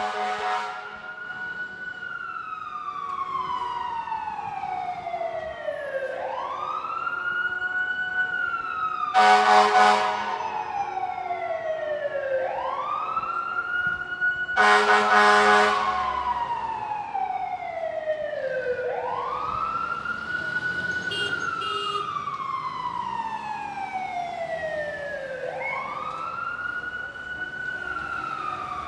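Emergency vehicle siren in a slow wail, each cycle rising quickly and falling slowly, about every six and a half seconds, with two loud horn blasts of about a second each, about a third of the way in and about halfway.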